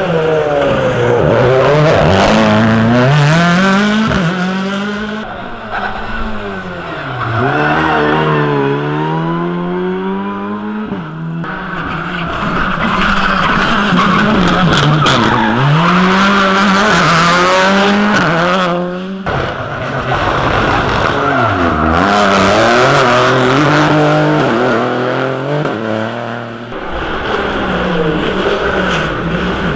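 Rally cars, among them a Škoda Fabia and a Ford Fiesta, driven flat out through a stage one after another. Their engines rev hard, the pitch climbing and dropping sharply again and again with gearshifts and braking.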